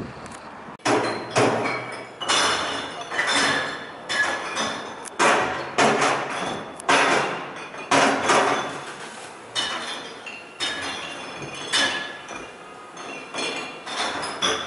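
Glass bottles and jars clinking and clattering as they are thrown by hand into the sorting compartments of an electric glass-recycling truck, where they are sorted by colour. There are sharp, ringing crashes one or two a second, starting about a second in.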